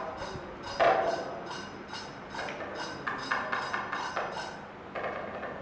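Percussion accompaniment to a Kathakali performance: sharp, ringing strokes in a steady beat of about three a second, breaking off briefly near the end before starting again.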